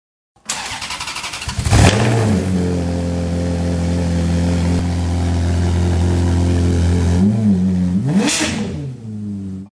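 Car engine sound effect: a rapid cranking, the engine catching with a loud burst about two seconds in, then idling steadily. Near the end it dips and blips up in revs with a whoosh, then cuts off suddenly.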